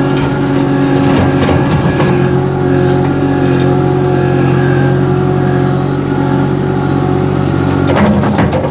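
MultiOne 7.2K articulated mini loader's engine running at steady revs as the machine drives over rough ground, with scattered knocks and rattles from the machine and a cluster of knocks near the end.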